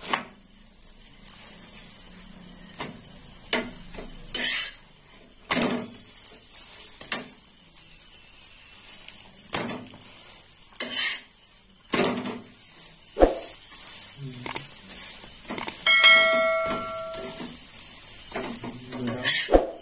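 A steel spatula scraping and tapping on an iron tawa as aloo parathas are turned and pressed, over a steady sizzle of frying in oil. A short chime rings near the end.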